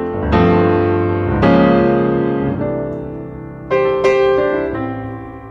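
Background piano music: chords struck every second or two and left to ring out and fade.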